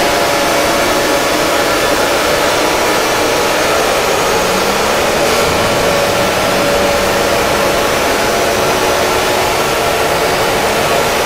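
Mock Emergency Alert System alarm: a loud, unbroken hiss with several steady tones held through it.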